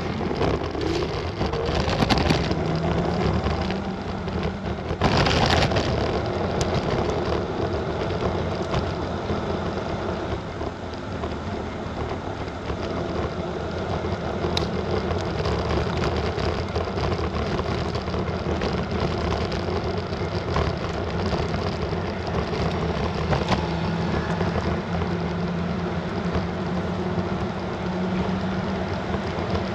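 Wind and road noise from riding an electric scooter along a paved city street: a steady rush with a low hum underneath, and a couple of louder surges in the first few seconds.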